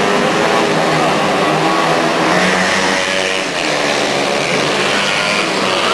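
Small motorcycle engines revving hard as the bikes race along the road, their pitch rising and falling.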